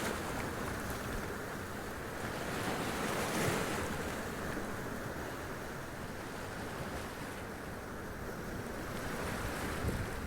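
Sea waves splashing and washing up over rocks, a continuous surf with a swell about three seconds in, and low wind rumble on the microphone.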